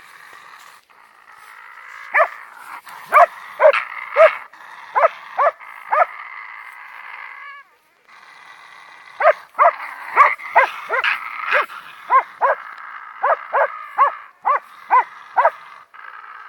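Young West Siberian Laika barking: two runs of short, sharp barks, a few a second, with a steady high whine running underneath between them.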